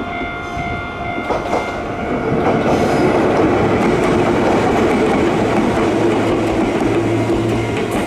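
Level-crossing alarm of the old JNR-style electronic type, sounding steadily, while a Choshi Electric Railway train rolls over the crossing. The train's rumble and wheel clatter build from about two seconds in and become the loudest sound.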